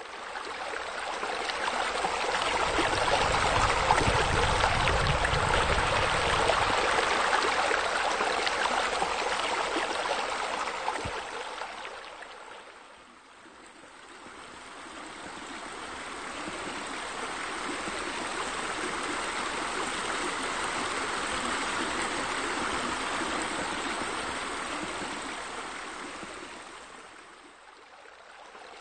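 Steady running, splashing water, as of a small waterfall spilling into a pool. It fades down about halfway through and again near the end, swelling back up each time.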